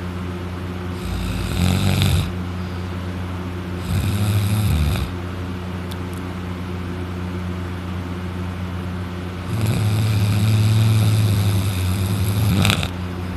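A man snoring loudly in deep sleep, open-mouthed while lying on his back: three harsh snores at uneven gaps, the last one long, about three seconds. A steady low hum runs underneath.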